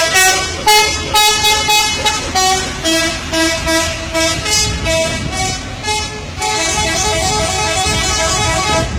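Bus 'telolet' musical horn playing a loud tune of short stepped notes, then switching about two-thirds of the way through to a faster, warbling trill.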